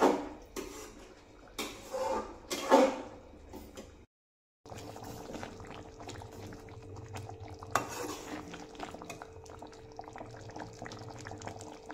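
A steel ladle stirring in a metal kadhai, knocking against the pan a few times. After a brief gap, thick paneer manchurian gravy bubbles and crackles as the ladle works through it.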